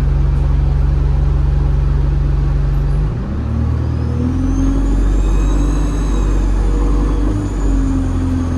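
ADL Enviro 200 bus diesel engine idling steadily, then pulling away about three seconds in, the engine note rising while a high turbocharger whistle spools up and holds. The engine note dips briefly about seven seconds in, then carries on.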